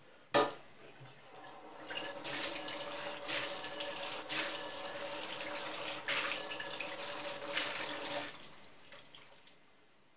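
A sharp click, then a kitchen tap running into the sink for about six seconds before it is shut off.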